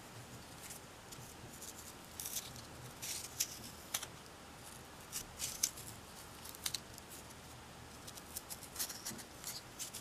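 Twisted steel wool scratching against the brass liners of a pocket knife as it is run back and forth through the blade groove, scouring out gunk, in short irregular rasps.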